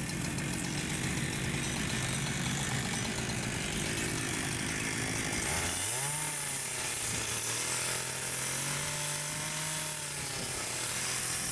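Chainsaw running at a low steady speed, then revved up about halfway through and held at high speed, its pitch wavering as it cuts through thick heart pine wall planks.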